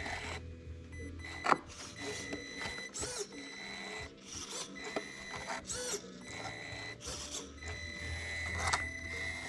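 Traxxas TRX-4M micro crawler's small electric motor and gears whining in short, repeated throttle bursts as it crawls over rock, with a sharp knock about one and a half seconds in.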